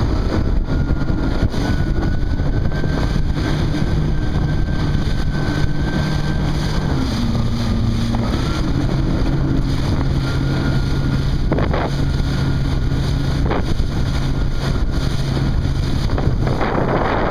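Watercraft engine running at speed with a thin high whine over its drone, the pitch dropping about seven seconds in and then holding steady, under heavy wind buffeting on the microphone. Two sharp knocks come later, and a hiss of spray near the end.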